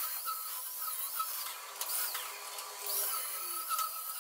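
Electric arc welding on steel: a sputtering hiss that swells and fades, as the mounting brackets for a tractor's power-steering cylinder are welded to the front axle.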